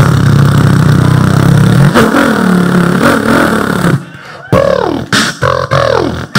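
A man's vocal motorcycle imitation, beatboxed into a handheld microphone. It starts suddenly with a loud, low buzzing engine note that wavers in pitch like revving. After a short break about four seconds in come several swooping revs that rise and fall in pitch.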